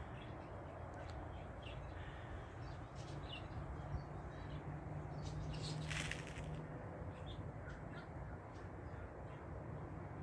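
Scattered bird calls over a steady outdoor background, with one louder call about six seconds in.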